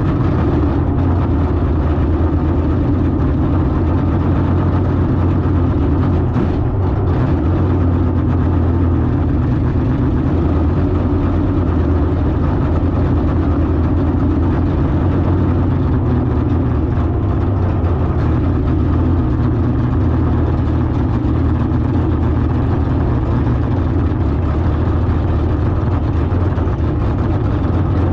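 Drag car engine idling steadily, an even low rumble with no revving.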